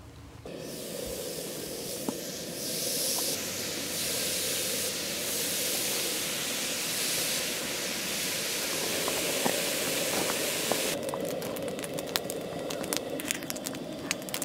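Bacon strips sizzling on the hot grill plate of a Coleman propane camp stove: a steady hiss that starts about half a second in, with sharp pops and crackles of spattering fat growing thick over the last few seconds.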